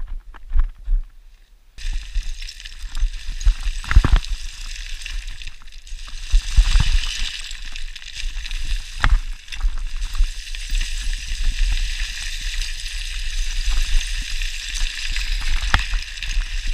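Hiker walking over loose rock in the dark with a trekking pole: a few sharp knocks of the pole or boots on stone, the loudest about four seconds in, over a low wind rumble on the microphone. A steady hiss starts about two seconds in.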